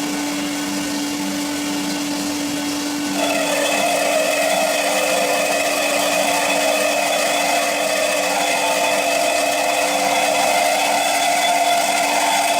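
Semi-automatic metal band saw running steadily. About three seconds in, its sound changes and grows louder into a grinding, ringing cut as the blade bites into the metal stock.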